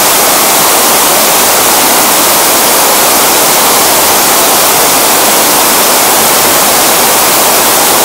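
Tukad Cepung waterfall pouring down through a narrow rock cleft into a pool: a steady, loud rush of falling water.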